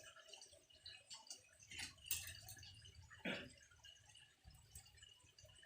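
Near silence with a few faint, short clicks, the clearest about two seconds in and again just after three seconds.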